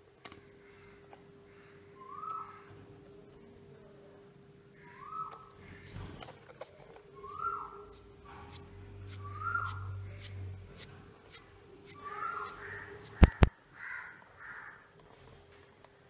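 Nestling birds begging: runs of thin, high chirps, thickest in the middle, with a repeated lower bird call every two to three seconds. A steady hum runs underneath, and two sharp knocks come near the end.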